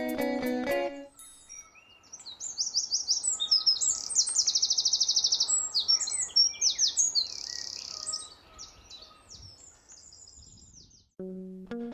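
A small songbird sings a high, rapid song of trills and twitters, including one long fast trill in the middle, over a faint steady background hiss. Plucked guitar music stops about a second in and comes back near the end.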